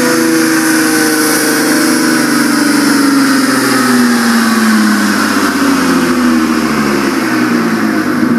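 Nissan GT-R R35's twin-turbo V6 running at about 4500 rpm through a Meisterschaft exhaust, loud and continuous, its pitch sliding slowly and steadily downward.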